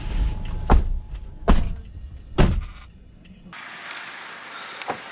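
Three sharp thumps about a second apart over a steady low rumble, which cuts off suddenly about three and a half seconds in, leaving a quieter, even background with a faint tick or two.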